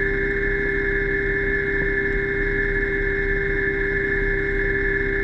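Underwater scooter (diver propulsion vehicle) electric motor running at a steady speed underwater, a constant high whine over a low churning rumble.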